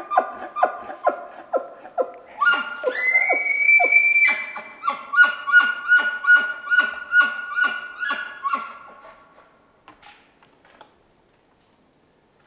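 Bull elk bugling at close range: a run of grunting chuckles, about three a second, then a high rising whistle held for about two seconds, then more chuckles that fade out about ten seconds in.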